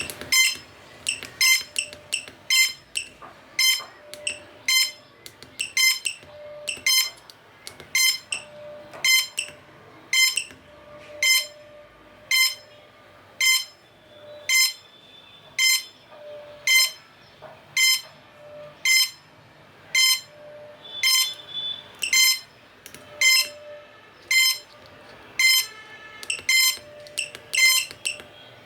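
Electronic buzzer giving a long series of short, sharp beeps, repeating steadily about every half second to second.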